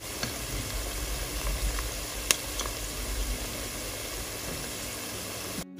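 Cornflour-battered cauliflower florets deep-frying in sunflower oil: a steady sizzle and bubbling, with one sharp click a little over two seconds in. The frying sound cuts off suddenly just before the end.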